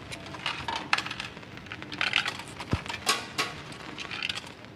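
Irregular light clicks and taps with short scratchy rustles: small objects being handled on a desk.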